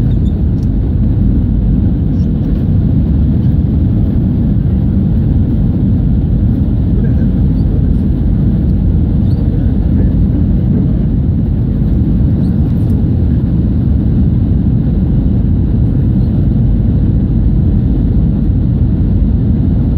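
Steady low rumble of engine and airflow noise inside the cabin of an Airbus A320-200 on final approach, flaps extended.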